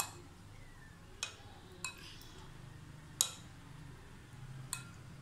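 Metal spoon stirring yogurt in a glass bowl, clinking against the glass five times at uneven intervals, the loudest about three seconds in.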